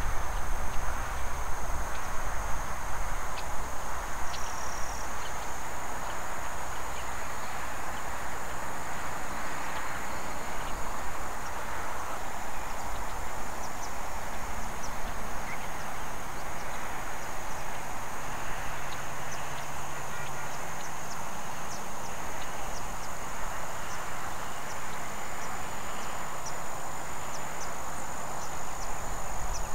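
Insects trilling in a steady, unbroken high-pitched tone over a constant background hiss, with a low rumble in the first few seconds.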